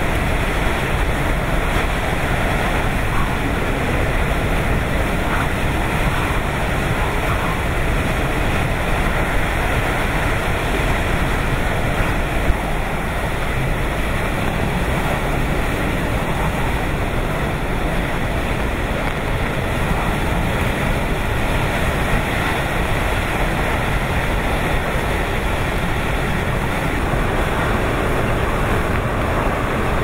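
Typhoon eyewall wind and driving rain: a loud, steady rush of wind noise, heavy in the lows, with the wind buffeting the microphone.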